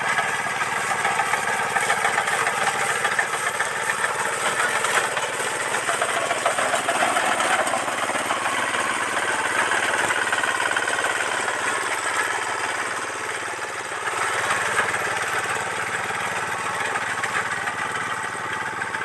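Engine of wheat-harvesting machinery running steadily, with a dense mechanical din.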